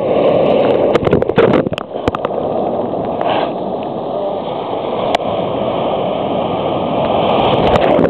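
Sea surf rushing and splashing right around a waterproof compact camera held at water level, with a few sharp splashes against it about a second in and again near the end.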